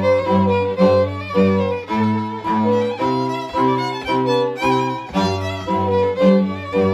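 Podhale highland string band, two fiddles with a cello-sized bowed bass (basy), playing a lively dance tune. Short, even bow strokes give a steady pulse about twice a second under the fiddle melody.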